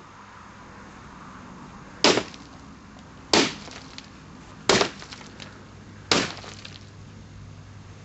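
A piece of wood struck hard, five sharp blows about a second and a half apart (the last right at the end), as it is smashed to pieces.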